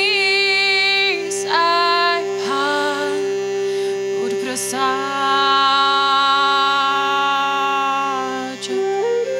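A woman singing slow, long held notes that slide from one pitch to the next over a steady, unchanging drone.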